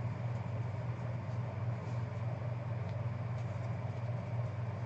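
Steady low hum with faint rustles and light ticks of trading cards being handled and sorted by hand.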